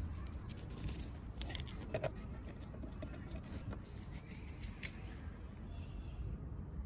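A few light metallic clinks of small steel engine parts being handled on a diesel cylinder head, as a camshaft bearing cap is taken off. The sharpest clinks come about one and a half and two seconds in, over a steady low rumble.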